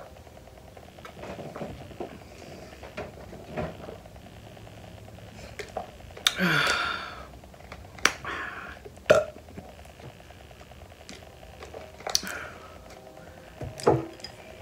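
A person burps once, loudly, about six seconds in, after gulping water from a plastic bottle. A few short clicks and knocks follow.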